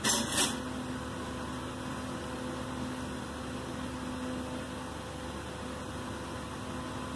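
Steady mechanical hum with a faint low tone running under it, like a fan or other running appliance. Near the start a spoon clinks briefly against the aluminium pot.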